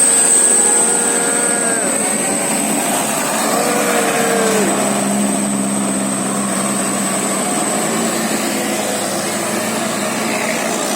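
Bus musical air horn ('telolet basuri') sounding held notes, several of which sag down in pitch as they end, over steady bus and traffic noise with a thin high whine.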